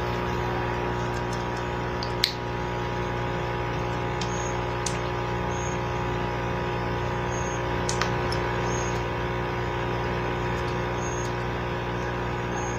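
Aquarium pump humming steadily, with a couple of small clicks about two seconds in and near the middle.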